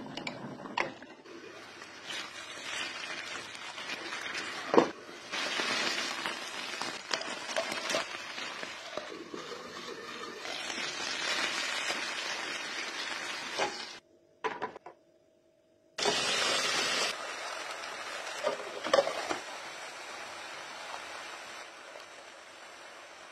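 Tomato slices sizzling in hot oil in a frying pan, with clinks of a spoon and spatula against the cookware. The sizzle drops out for about two seconds about two-thirds of the way through.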